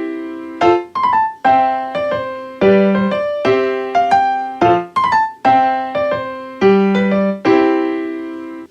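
Background music: a solo piano, possibly electric piano, playing a simple melody of struck notes that ring and fade, ending abruptly.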